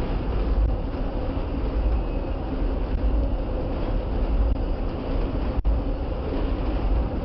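Amtrak Auto Train autorack cars rolling past: a steady, deep rumble of steel wheels on the rails.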